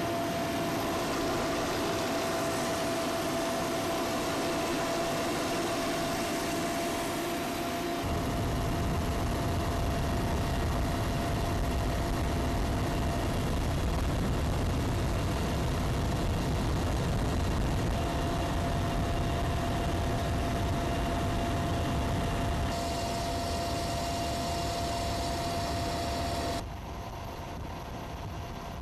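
Helicopter engine and rotor noise: a steady drone under a constant whine. It changes abruptly about eight seconds in and drops in level near the end.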